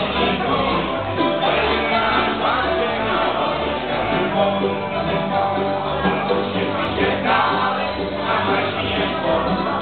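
Live acoustic string band playing a country tune, an upright bass plucking a steady alternating beat under the guitar and other strings.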